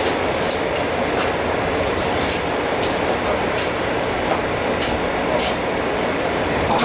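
Steady, loud workshop noise inside a train car under repair, with scattered light clicks and taps from hands and tools on the metal equipment cabinets.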